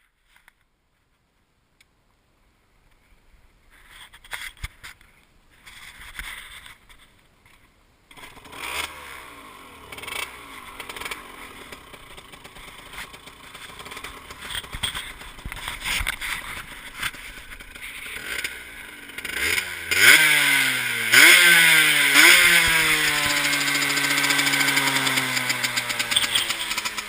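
Aprilia SX motorbike with a Malossi MHR race exhaust starting up about eight seconds in after a few scattered knocks, then idling. Near the end the throttle is blipped three times, each rev rising sharply and falling back slowly towards idle.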